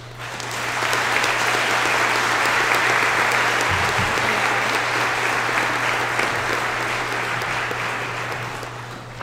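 Audience applauding, swelling up within the first second, holding steady, then tapering off near the end.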